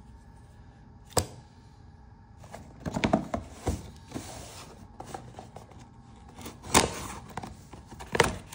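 Sharp clicks and knocks of a multitool being handled, about five in all, with a brief rustling scrape about four seconds in.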